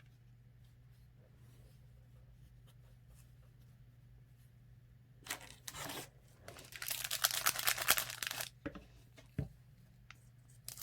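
Foil wrapper of a trading card pack being torn open: a short rip about five seconds in, then a longer crackling tear a second later, with a few small crinkles after.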